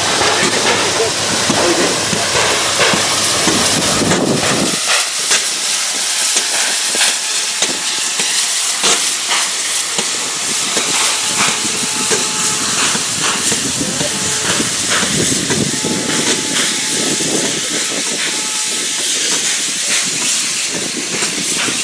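Chinese-built JS-class 2-8-2 steam locomotive working steam as it moves its train off, with a loud, steady hiss and sharp exhaust chuffs. A heavy low rumble from the machinery drops away about five seconds in.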